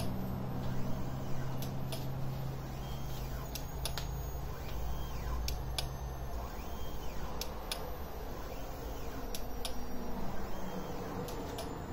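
Complex Scan D1000 motorised turntable spinning its 1 m glass disc near top speed under a 19-litre water bottle: a low, steady drive hum that stops about six seconds in, with scattered light clicks.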